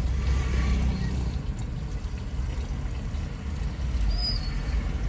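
A Hyundai Santro's petrol engine idling steadily while petrol is poured by hand into the measuring container that feeds it during a fuel-average test. A brief high squeak comes about four seconds in.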